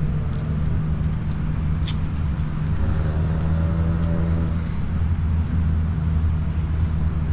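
A motor engine running steadily with an even, low hum, with a few faint clicks in the first two seconds.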